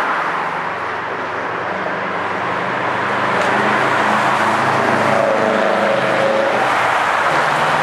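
Road traffic driving across the bridge: a steady rush of tyre and engine noise, with the engine hum of a vehicle passing close by coming through plainly from about halfway through.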